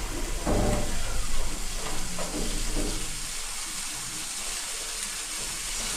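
Water gushing fast from a pumped hose into a plastic water bucket, a steady rushing hiss. The fill is quick enough to top the bucket up almost at once.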